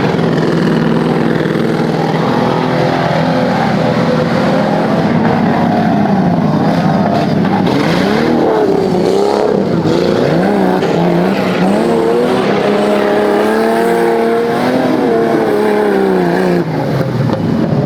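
Off-road 4x4 engine running hard and revving up and down repeatedly, then holding a steady higher pitch before easing off near the end.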